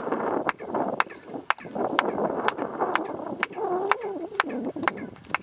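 Sharp clicks repeating about twice a second over steady outdoor background noise.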